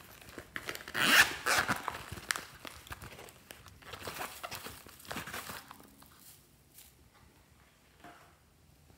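Zipper of a glossy red purse being pulled open with a loud rasp about a second in, then more zipping and rustling of the bag and crinkly metallic tinsel as things are pulled out. It goes quiet after about six seconds.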